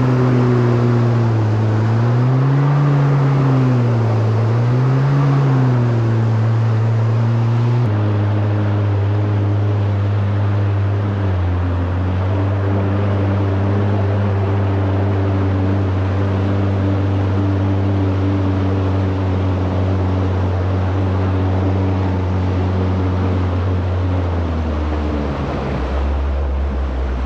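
Kawasaki SX-R 1500 stand-up jet ski's four-stroke four-cylinder engine running underway, its pitch rising and falling twice with the throttle. About eight seconds in it drops to a steady lower note as the ski slows, and near the end it falls again toward idle.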